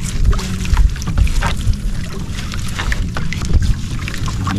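Wet nylon fishing net hauled in by hand over the side of a small wooden outrigger boat: scattered small splashes, drips and rustling clicks, over a steady low rumble of wind on the microphone.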